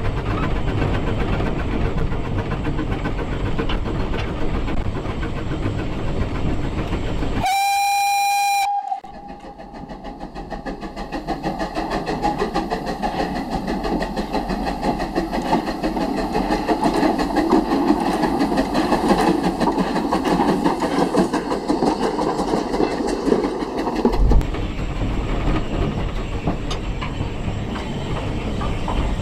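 Narrow-gauge steam locomotive running, heard from the footplate, with one steam-whistle blast about a second long a quarter of the way in. After that the locomotive is heard working up a cutting, growing steadily louder as it approaches, before the footplate running noise returns near the end.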